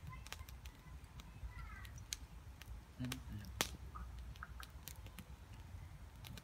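Open wood fire crackling under a wok, with scattered sharp pops over a steady low rumble.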